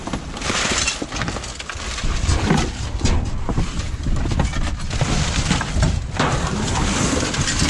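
Cardboard boxes being shifted and dragged among broken glass and debris in a dumpster: rustling and scraping with many scattered knocks and clinks.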